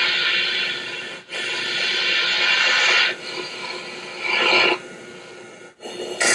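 Snoring: long rasping breaths of one to two seconds each, louder raspy stretches alternating with quieter ones.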